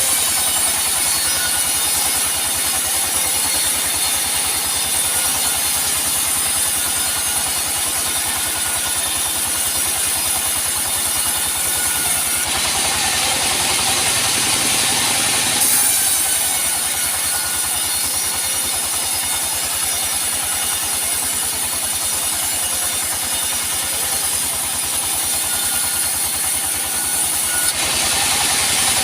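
Sawmill machinery running steadily: a constant engine-like drone with a high whine over it. The sound changes character for about three seconds near the middle, then settles back.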